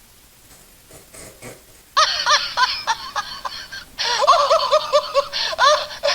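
Recorded laughter played from a novelty sound-effect machine's small speaker, thin-sounding with no bass. It starts about two seconds in, breaks off briefly about halfway, and resumes.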